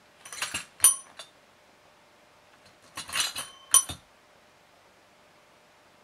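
A red desk service bell struck by a puppy's paws: two short dings about three seconds apart, each preceded by a clatter of the paws scraping and tapping on the bell.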